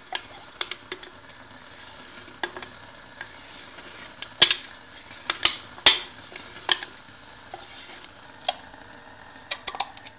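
Razor blade scoring an empty aluminium drink can as the can is turned against its edge, giving irregular metallic clicks and short scratches. The sharpest clicks come about four and a half and six seconds in, with a quick run of them near the end.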